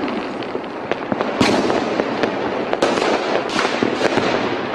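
Fireworks and firecrackers going off: a dense, continuous crackle of small pops with sharper bangs about a second and a half in, near three seconds and again shortly after.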